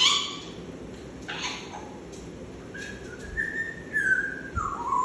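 African grey parrot whistling a few held notes of a tune, stepping down in pitch toward the end, after two short, sharp noisy sounds in the first second and a half.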